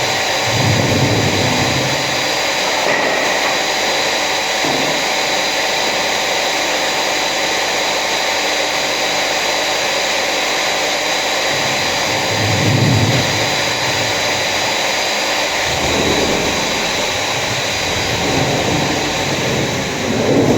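An electric power tool running steadily with a motor whine, its low end swelling a few times as it is worked.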